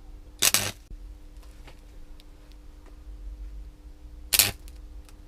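Stick (arc) welder striking an arc on steel twice: two short bursts of arc noise, the first about half a second in and the second about four seconds in, each dying out within a fraction of a second. A steady hum runs underneath.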